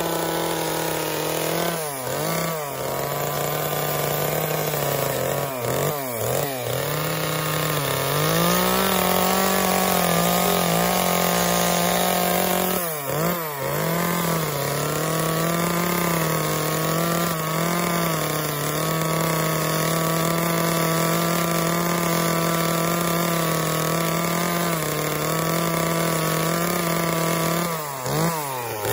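Chainsaw running at high speed while carving wood, its engine pitch dipping and recovering briefly a few times, then holding steady for long stretches.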